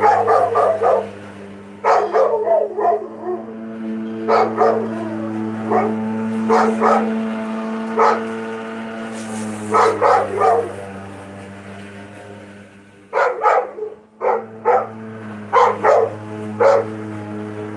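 A dog barking in repeated clusters of three to five quick barks, over the steady hum of an electric lawn mower running.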